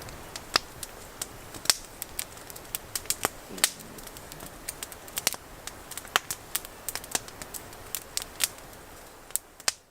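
Spoons clinking and scraping against camp bowls or mugs as soup is eaten: irregular sharp clicks and taps, a few a second.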